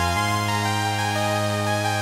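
Sequential Take 5 five-voice analog polysynth playing held chords on a preset, changing to a new chord shortly after the start.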